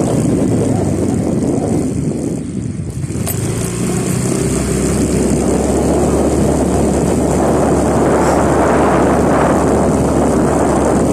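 Motorcycle engine running while riding along a street, with road and wind rush; it eases off briefly about two seconds in, then picks up and grows fuller toward the end.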